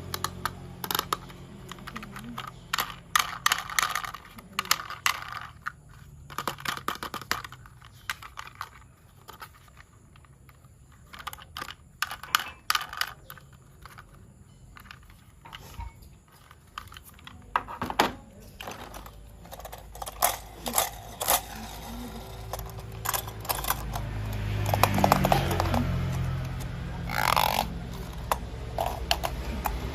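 Plastic toy train parts clicking and rattling as they are handled and fitted together, in many short irregular clicks. A low steady hum is there at the start and comes back about two-thirds of the way in, growing louder.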